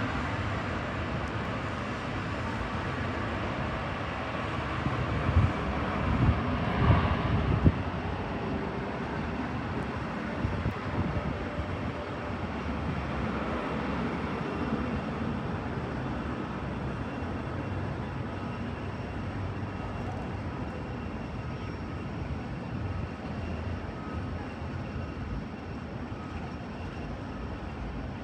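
Airliner engine noise: a steady rush that slowly eases, with a few brief low thumps about five to eight seconds in.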